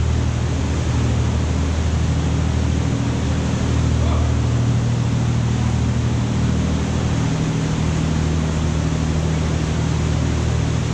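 Tour boat's engine running with a steady low hum under the even hiss of water and air rushing past the hull. The engine note shifts slightly about seven seconds in.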